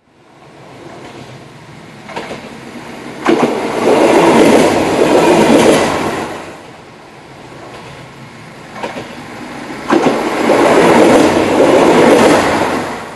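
A TER single-car diesel railcar passing close by, heard twice. Each pass opens with a couple of sharp wheel clicks over rail joints and swells into a loud rush of wheel and running noise lasting about three seconds, then fades.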